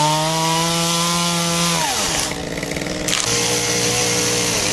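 Chainsaw engine running at high revs, then dropping off about two seconds in. About three seconds in it is at high revs again, held steady until the revs fall away near the end.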